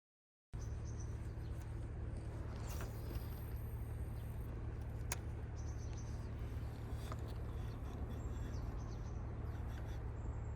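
Outdoor ambience starting about half a second in: a steady low rumble with faint high-pitched chirping and a couple of short sharp clicks.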